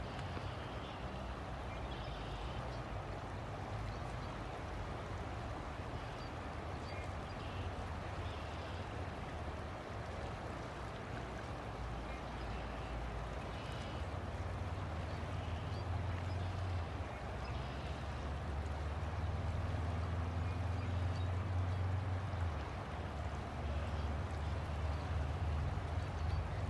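River water flowing steadily, a continuous rushing, with faint short high sounds now and then. A low rumble beneath it grows louder about two thirds of the way through.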